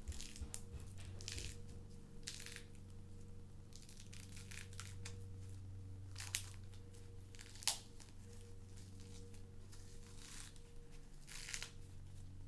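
Plastic toy packaging being handled, crinkling and tearing in short irregular scrapes, with two sharp clicks about six and eight seconds in, over a steady low hum.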